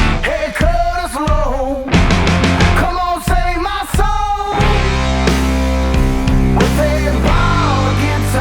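Background music: a country-rock song in an instrumental passage, with a bending melodic lead line over a steady band and bass.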